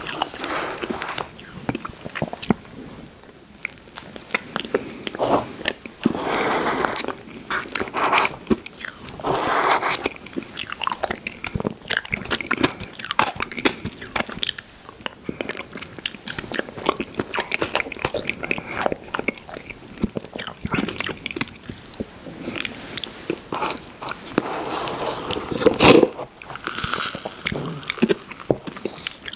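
Close-miked mouth sounds of someone eating Christmas tree cake ice cream: chewing with many sharp, irregular wet clicks and short bursts, one louder burst near the end.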